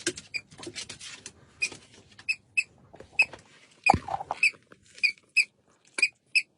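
Squeaker in a plush dog toy, newly put back in, squeaking in quick short repeated squeaks a few times a second. A low thump about four seconds in.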